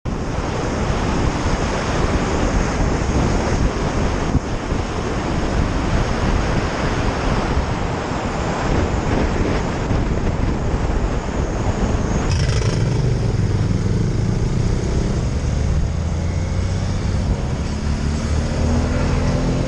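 Wind rushing over the microphone of a camera riding on a moving motorcycle. About twelve seconds in the wind noise eases and the motorcycle engine's note comes through, rising slowly in pitch.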